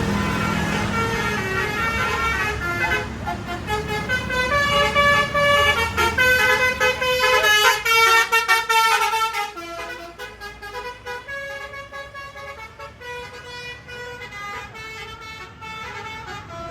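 Bus 'telolet basuri' musical air horn playing a quick tune of short notes that step up and down in pitch, over the low running of the bus engine. About nine and a half seconds in, the sound drops in level and the notes carry on more faintly.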